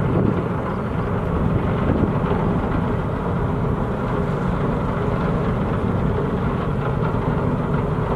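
Large car ferry's machinery running with a steady low rumble as it manoeuvres alongside its berth.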